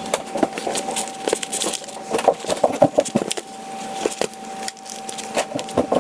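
A pot of water at a rolling boil, bubbling with a dense run of irregular pops and crackles, over a steady faint high hum.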